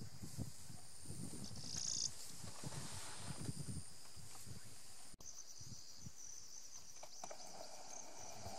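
African elephant feeding on grass close by: irregular low sounds as it pulls up and chews mouthfuls, over the steady high chirring of insects. After a cut about five seconds in only the insects continue.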